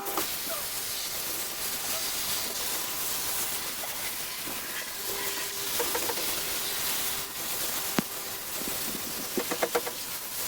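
A steady, even hiss that starts abruptly and holds level throughout, with a few faint clicks and knocks in the second half.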